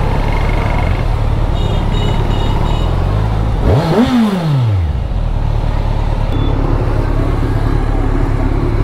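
Kawasaki Ninja 1000 inline-four motorcycle engine running at low speed under the ride's road noise, with one quick throttle blip about four seconds in: the pitch rises sharply and falls back within about a second.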